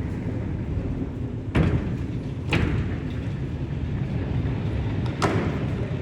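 A steady low mechanical rumble with three sharp knocks: two about a second apart, then a third nearly three seconds later.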